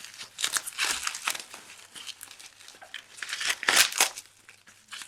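Plastic packing wrap, bubble wrap, being crinkled and pulled open by hand as a camera is unwrapped. The crackling comes in irregular bursts and is loudest about three and a half seconds in.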